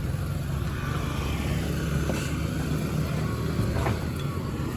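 Steady low rumble of passing street traffic.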